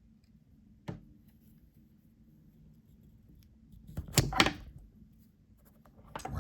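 A stiff slip-joint pocketknife blade being worked against its strong backspring, with handling noise: a single sharp click about a second in, then a louder flurry of clicks and knocks around four seconds in as the blade is forced.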